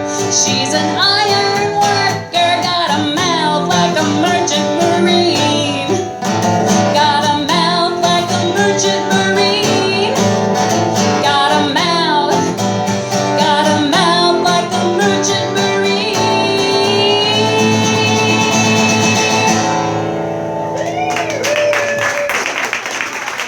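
Live acoustic song with singing over plucked acoustic guitar, closing on a long held final note; applause starts near the end.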